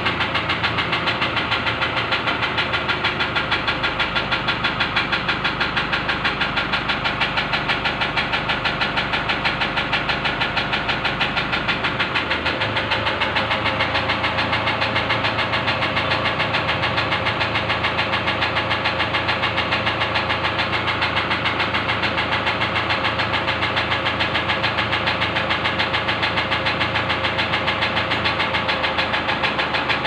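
Toyota Hilux common-rail diesel engine idling with a steady, even knock. The injector feedback readings point to a damaged number 1 injector as the cause of the knocking.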